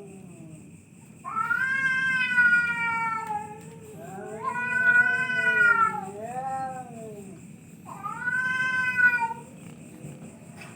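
Two domestic cats yowling at each other in an aggressive standoff: four long, drawn-out wavering howls, one after another, with short pauses between them.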